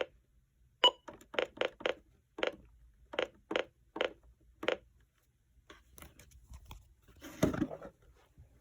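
Buttons on a Reecom weather alert radio pressed in quick succession, about eleven short clicks at uneven spacing, as the alert is being switched on. Near the end, a single dull knock.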